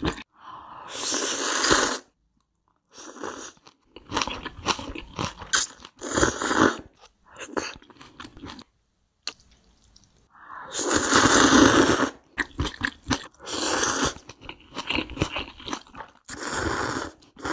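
Close-miked eating sounds: noodles slurped in long noisy pulls of a second or two, with wet chewing and crunching bites between them, broken by short dead-silent gaps.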